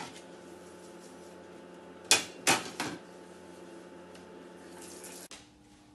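Dishes being washed in a stainless-steel sink: three sharp clinks of crockery against the sink about two seconds in, over a steady hiss that stops suddenly near the end.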